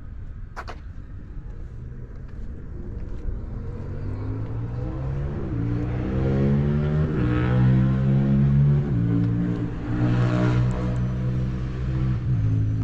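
A motor vehicle's engine accelerating, growing louder from about four seconds in, its pitch climbing and then dropping several times as it shifts gears.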